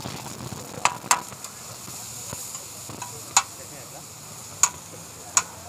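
Masala-coated fish sizzling in oil on a large flat iron tawa, a steady frying hiss. Five sharp clicks are scattered through it.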